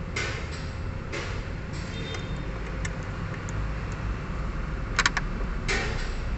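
Gloved hand fitting a diesel fuel filter into its bracket under the van's seat: short scraping and rustling handling noises and a quick cluster of sharp clicks about five seconds in, over a steady low rumble.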